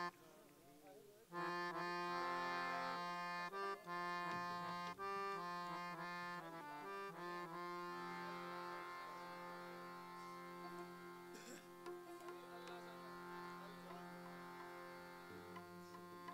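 Harmonium playing a slow instrumental melody of held, sustained notes that change step by step, coming in about a second in after a brief lull.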